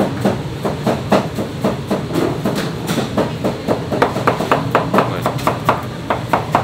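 Knife chopping on a cutting board at an even pace, about four strokes a second, over a steady low hum.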